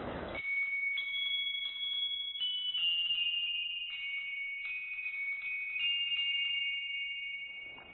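Background music cue of high chime-like bell notes, entering one after another and ringing on together over near-quiet ambience, then fading out near the end.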